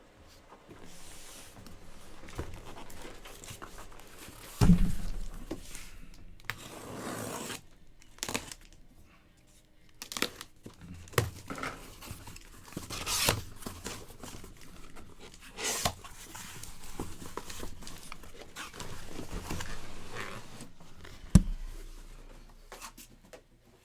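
Packaging being handled at a table: irregular crinkling and tearing, with a sharp knock about five seconds in and a louder one near the end.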